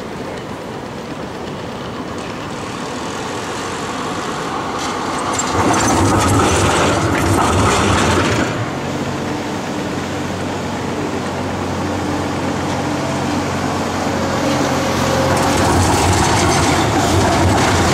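Melbourne street trams passing close by, their steel wheels rolling and clattering over the track; the loudest pass is about six seconds in, and another tram rolls by near the end. A steady low hum sits under the second half.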